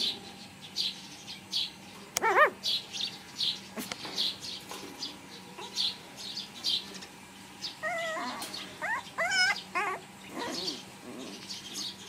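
Young puppies whining and yelping as they wrestle: one short whine about two seconds in, then a run of wavering high whines from about eight to ten seconds in. Short high chirps repeat about twice a second behind them.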